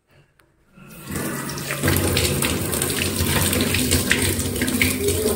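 Kitchen tap turned on about a second in, then water running steadily from the faucet into a stainless steel sink and over hands being rinsed under it.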